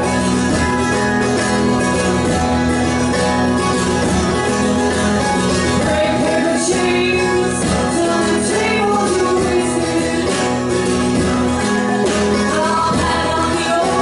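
Live acoustic band music: a strummed acoustic guitar and a smaller strummed string instrument playing a passage of the song without sung words.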